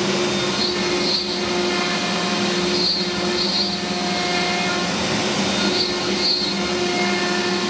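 CNC router spindle running with a compression spiral router bit cutting through 3/4-inch birch plywood: a steady machine hum and whine over cutting noise, the pitched hum breaking off briefly a few times.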